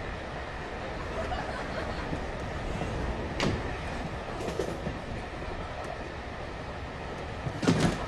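Train running on the rails: a steady rumble, with a sharp clack about three and a half seconds in and a louder clatter near the end.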